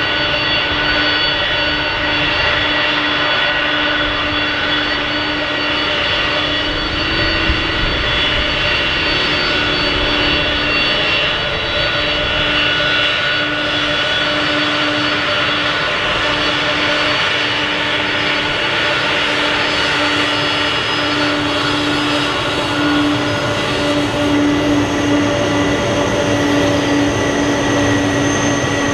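Jet airliner engines running with a steady whine of several high tones over a broad rush. A higher whistling tone joins near the end.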